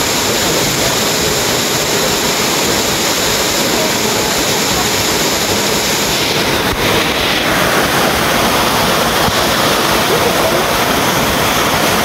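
Waterfall pouring onto rocks and into a pool: a steady, loud rush of falling water, its tone shifting slightly about seven seconds in.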